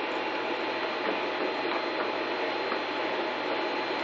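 Steady background hiss with a faint hum and a thin, steady high whine: room tone, with no distinct handling sounds.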